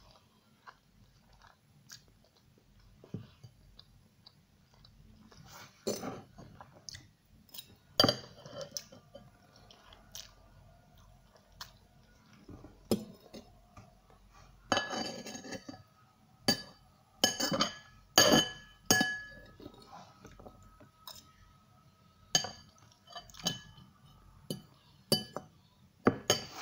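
Metal fork clinking and scraping against a ceramic bowl, with chewing. The sharp clinks come in clusters, each with a short ring; the loudest run is a little past the middle.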